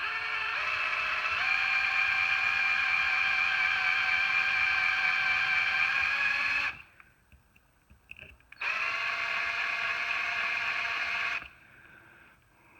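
Small electric drill running with a 1/8 bit, drilling out a die-cast car's rivet post to free the body from the chassis. It gives a steady whine for about six and a half seconds, stops briefly, then runs again for about three seconds.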